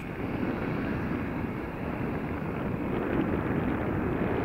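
The jet engines of an Airbus A320-232, IAE V2500 turbofans, running at taxi power: a steady rumble that grows slightly louder as the aircraft rolls past.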